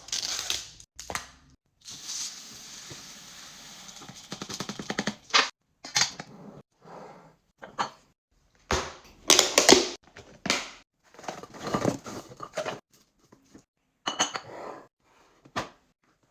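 Containers and packaging being handled while a fridge is restocked: a run of clinks, clicks and rustles, with a longer stretch of steady noise and quickening ticks a few seconds in.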